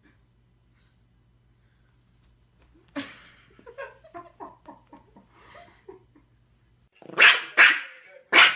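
A small dog, a Yorkshire terrier, barking sharply three times in quick succession near the end, after a quieter run of short pitched sounds.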